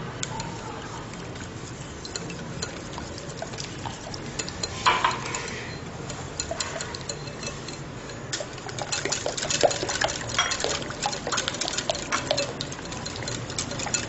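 Wire whisk beating thin malpua batter in a glass bowl: wet stirring with the wires clicking against the glass, the clicks coming faster and louder in the second half.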